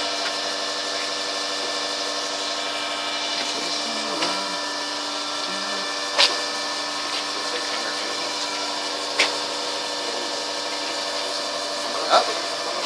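Old Tinius Olsen universal testing machine humming steadily with several fixed pitches as it loads a wooden specimen in compression. A few sharp cracks come from the wood giving way under the rising load, the loudest about six and twelve seconds in.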